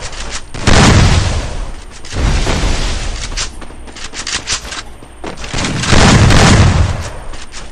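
Video-game gunfire: loud booming shots about one and two seconds in and again near the end, with a run of quick sharp cracks in the middle.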